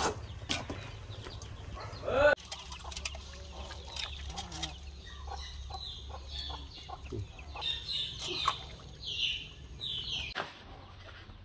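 Chickens clucking and chirping, with a cluster of short high chirps toward the end, over scattered clicks and knocks from raw offal and a metal pot being handled.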